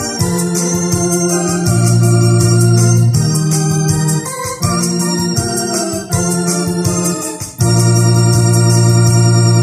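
Electronic keyboard playing a Catholic hymn on an organ sound, without singing: sustained chords over held bass notes that change every second or so. About three-quarters of the way through it settles on one long held closing chord.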